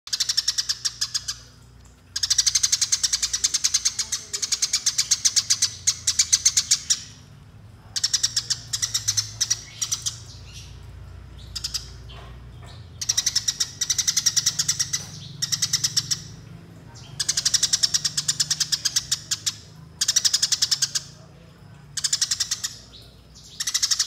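Eurasian tree sparrow singing the fast rolling 'gereja tarung' (fighting sparrow) chirp series: rapid, evenly repeated high chirps in bouts of one to five seconds with short pauses between them.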